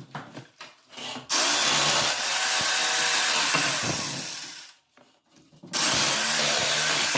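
An electric power tool working wood, run twice: a few knocks, then a long run of about three seconds that winds down, and a second run starting a little before the end.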